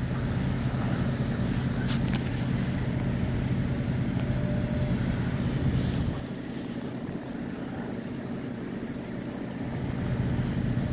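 Heavy diesel engine running at a steady speed, a low hum from the working demolition and fire-engine equipment, that drops away about six seconds in and comes back near the end.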